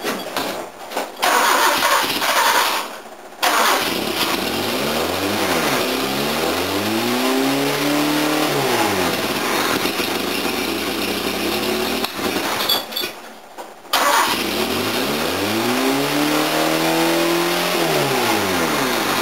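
Toyota 4K four-cylinder engine, just fitted with a Weber 32/36 DGV carburettor, firing and running on its first start after the carb swap. Its revs rise and fall back twice, and the running drops out briefly a few seconds in and again about two-thirds of the way through.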